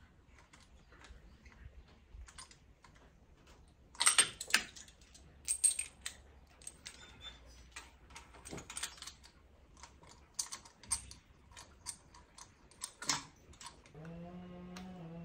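Irregular light clicks and small metallic taps of hand tools and spark plugs as cleaned plugs are fitted into the engine, with a few louder clatters. Near the end a steady droning tone begins.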